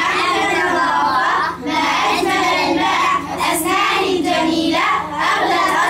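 Children singing a song together in phrases, with short breaks between them.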